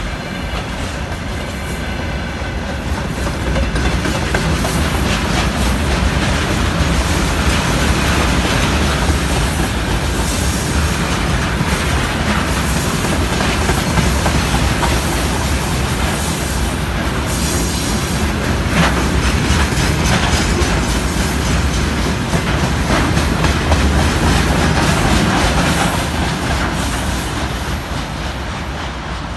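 Freight train wagons rolling past: a steady clatter of steel wheels on the rails. It grows louder about four seconds in and eases slightly near the end.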